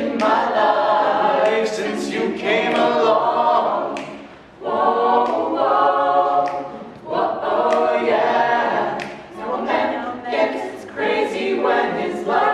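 Mixed-voice a cappella group singing together in harmony, in sung phrases separated by brief dips.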